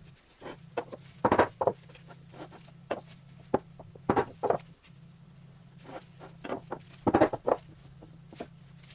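Irregular clicks and knocks of parts and tools being handled on a workbench, in small clusters, over a steady low hum.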